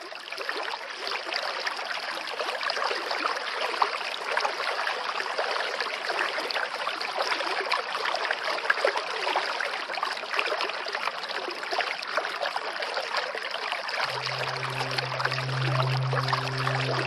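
Rushing water, steady and continuous, fading in at the start. About fourteen seconds in, a low sustained musical drone joins it.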